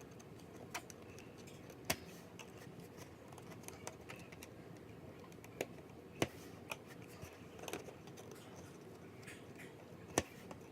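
Small sharp clicks and taps from a precision screwdriver and the tiny screws of an iPhone 6's metal bracket as they are unscrewed and set down, a few seconds apart, with the loudest near the middle and near the end, over faint room tone.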